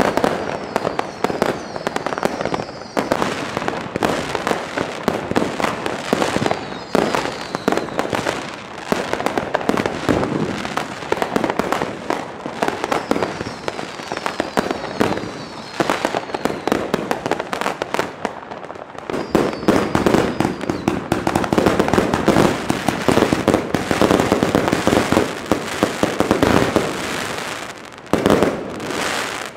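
Firecrackers and fireworks going off without a break: a dense run of bangs and crackling, with a few short whistles early on, growing thicker and louder about two-thirds of the way through.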